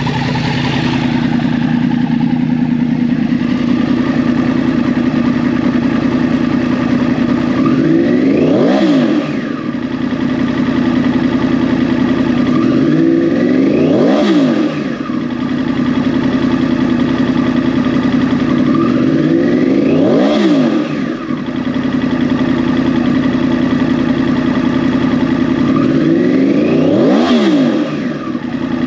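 2014 Yamaha R1's crossplane inline-four with a Toce 3/4 T-Slash exhaust, idling steadily. It is blipped four times about six seconds apart, each rev rising sharply and dropping back to idle within about a second.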